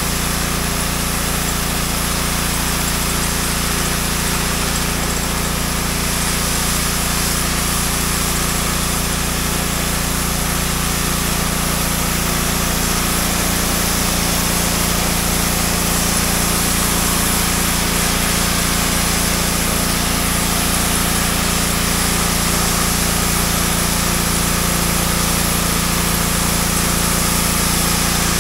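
Gas-engine pressure washer running steadily under load, with the spray from its wand hissing against a garage door.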